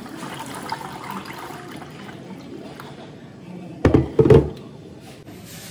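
Water pouring from an electric kettle into a cooking pot in a steady stream. About four seconds in, two loud, dull thumps.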